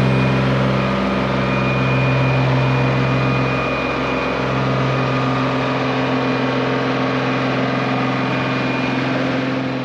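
1983 Mercedes Unimog U1700L's diesel engine running at steady revs as the truck drives slowly across soft beach sand, fading away near the end.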